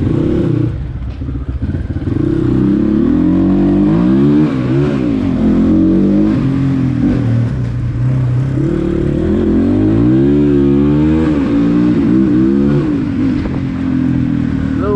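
Dirt bike engine running under way, its pitch rising and falling several times as the throttle is opened and closed.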